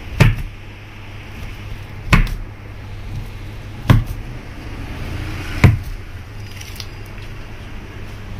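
Long knife chopping down through a frozen kulfi roll coated in chopped nuts, each cut ending in a sharp knock of the blade on the foil-covered board: four knocks, about two seconds apart, over a steady low hum.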